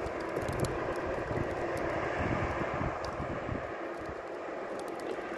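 A steady engine drone: one constant hum over a low, uneven rumble.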